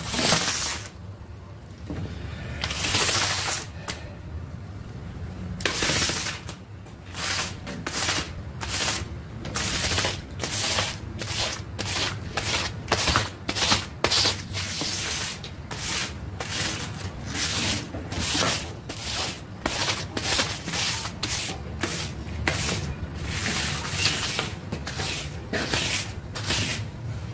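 Repeated scraping strokes of a long-handled tool dragged across a wet, muddy shag rug. A few strokes come spaced apart at first, then they settle into a steady run of about one and a half strokes a second.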